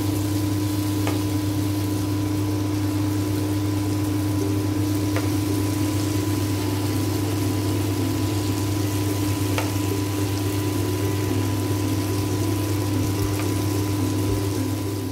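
Lentil-batter fritters (dahi baray) deep-frying in hot oil, a steady sizzle with a few faint clicks. A steady low hum runs underneath.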